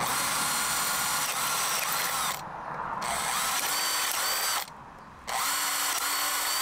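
Cordless drill boring holes in a PVC pipe: three runs of the motor, each a steady whine, with short breaks between them and the pitch rising as the drill spins back up.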